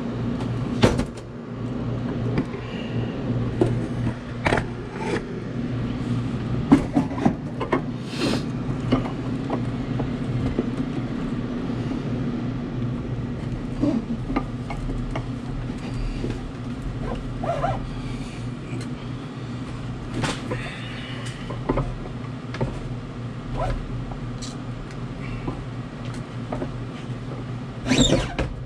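Irregular metallic clinks and knocks as a Follett ice machine's auger and bearing housing are handled and fitted into the evaporator, over a steady low hum.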